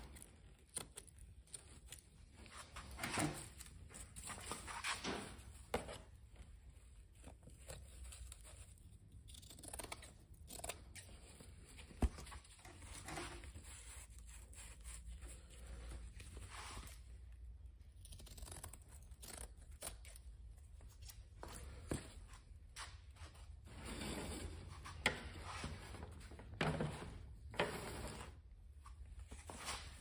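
Scissors snipping through patch material in short, irregular cuts, with some tearing sounds in between.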